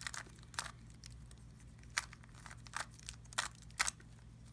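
Plastic X-Man Wingy skewb being turned fast by hand: a run of irregular short clicks and clacks as its pieces snap through each turn.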